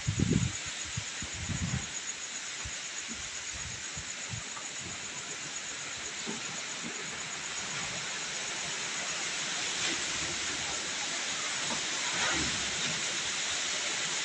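Strong storm wind blowing, a steady hiss that grows gradually louder. A few low thumps of gusts hit the microphone at the start.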